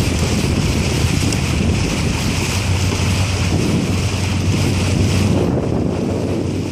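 Wind buffeting the microphone in a steady low rumble, with water noise beneath it.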